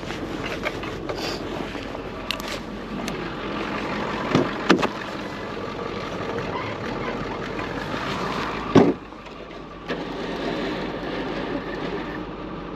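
Tow truck engine running steadily, with a few sharp knocks about four and a half seconds in and one loud thump near nine seconds in, after which the sound is briefly quieter.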